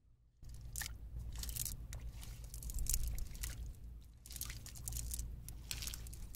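Hands working through a wet cast net in shallow water over sand: irregular crunching and rustling of the mesh and its sinker line, starting about half a second in, over a steady low rumble.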